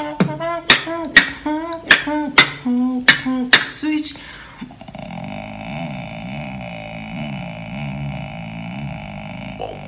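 Female beatboxer's voice: a hummed melody over sharp kick and snare strokes, about two a second. About four and a half seconds in, it gives way to a steady nasal drone, a buzzing hum with a slowly wavering pitch and strong overtones: her traditional nose sound.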